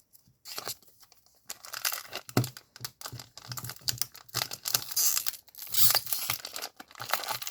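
Pokémon card booster pack being torn open by hand, its wrapper crinkling and ripping in irregular bursts that begin about half a second in.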